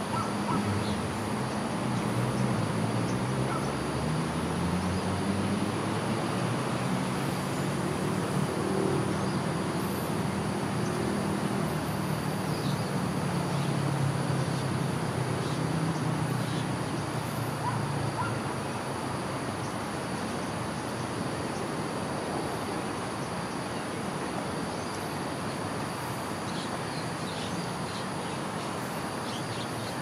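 Outdoor ambience: a steady high insect drone with a low engine hum of traffic that fades about two thirds of the way through, and a few short bird chirps.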